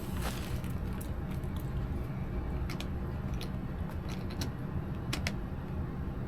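Scattered light clicks and taps from plastic drain pipe and fittings being handled, over a steady low hum.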